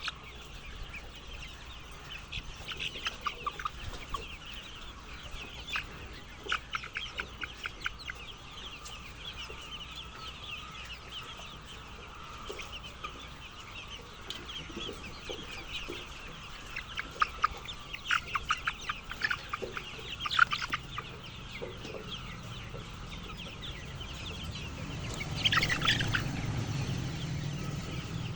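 Domestic chickens clucking, with clusters of short, quick calls. A louder call comes about 25 seconds in, with a low hum rising under it near the end.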